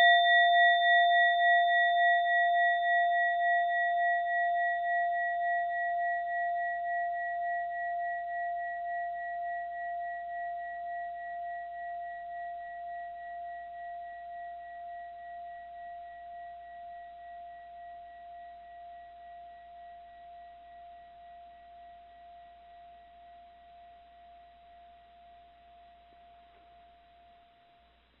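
A mindfulness bell ringing out from a single strike: one clear tone with higher overtones, fading slowly over nearly half a minute to almost nothing. The tone swells and ebbs in a gentle regular pulse as it dies away.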